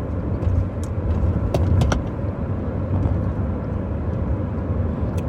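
Steady low vehicle rumble, with a few light clicks around the second second and near the end.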